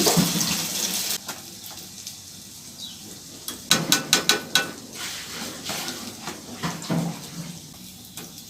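Water running from a tap, shut off about a second in, followed by a quick run of sharp clicks and clatters about four seconds in.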